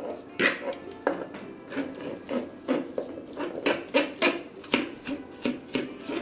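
Two metal forks shredding a fork-tender pressure-cooked pork roast against a plastic cutting board: repeated, irregular scraping and tearing strokes, a few each second, with light clicks of the tines on the board.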